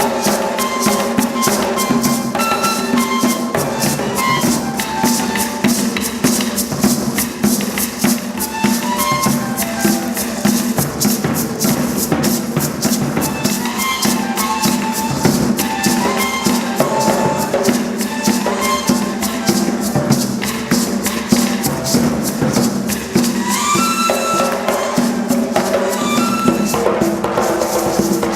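Music: a fast, steady rhythm of shaken and struck percussion over a low steady drone, with short melodic notes moving up and down; a quick rising run of notes comes about 23 seconds in.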